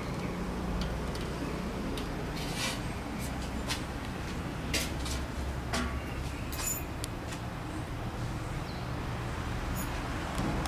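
Scattered light clinks and taps, about half a dozen, over a steady low hum.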